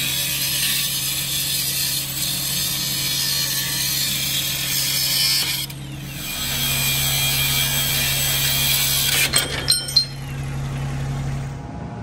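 Cordless Milwaukee cut-off tool grinding through rusted axle U-bolts and nuts at the leaf-spring perch, a steady harsh, high-pitched grind. It stops briefly about halfway and then starts again, with a few sharp clicks near the end.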